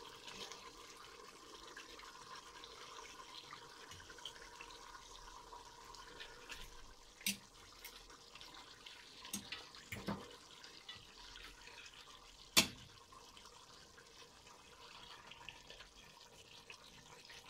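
Quiet, steady bubbling of pots simmering and boiling on the stove. A few sharp metal clinks come as a fork lifts browned chicken pieces into the stainless steel pot; the loudest is about two-thirds of the way in.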